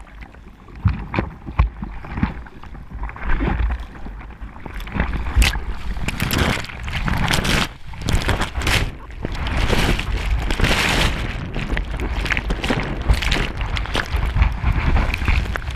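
Sea water splashing and sloshing against a bodyboard and a camera at water level as the rider paddles through chop, with wind on the microphone. From about halfway, white water from a breaking wave washes over the board and camera in a continuous rushing churn, broken by sharp splashes.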